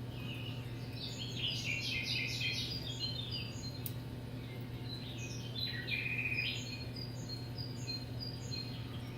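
Birds chirping, quick series of short high notes, with a break near the end before more chirps, over a steady low hum.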